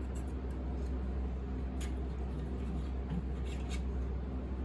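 A few light scrapes and taps from a hot knife working a shellac fill into a blemish in a piano's finish, over a steady low electrical hum.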